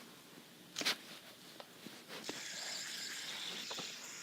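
A faint click, then a faint steady whir starting about two seconds in: a fidget spinner spinning freely on its bearing.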